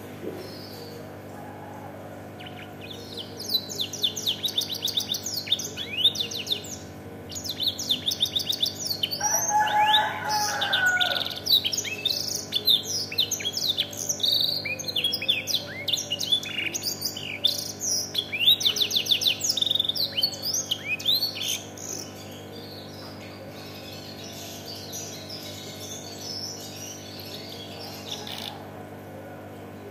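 A domestic canary singing a long song in the Indonesian 'isian' style, filled with black-throated canary (blackthroat) phrases: fast trills and rolling chirped runs. It starts a couple of seconds in, pauses briefly, sings on for about twenty seconds, then drops to faint twittering.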